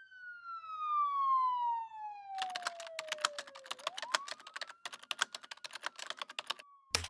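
A siren wailing in slow sweeps, falling in pitch for about four seconds and then rising again. A fast run of sharp clicks starts about two and a half seconds in and stops shortly before a single sharp hit at the end.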